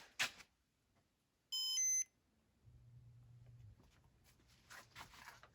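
Casablanca Comfort Touch fan control beeping once as the speed-three command is received: a short lower tone, then a higher one. About a second later the fan's XLP motor gives a faint low hum for about a second as it changes speed.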